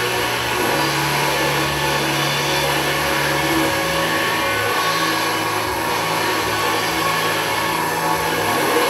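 Electronic soundtrack: a dense, hissing drone over low sustained bass tones that step to a new pitch every few seconds.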